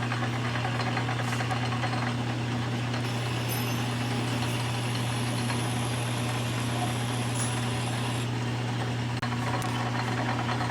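Metal lathe running steadily under power feed, taking the first light scratch pass of a left-hand internal thread in a nut plate. A steady hum throughout, with a faint high whine that comes in about three seconds in and stops about eight seconds in.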